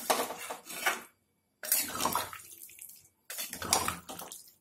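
Diced potatoes being stirred with a spatula in a steel pan of water, the liquid sloshing and the spatula scraping the pan in three strokes of about a second each.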